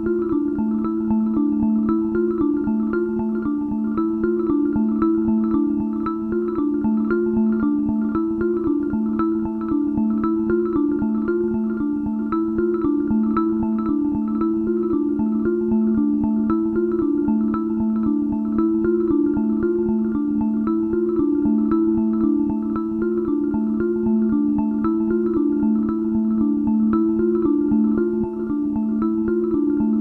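Background music: a fast, repeating pattern of notes.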